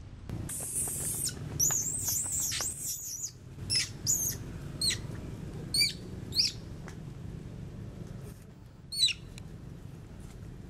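Macaque screaming: a run of shrill, high-pitched squeals, several close together in the first few seconds, then short single cries about a second apart, and one more near the end.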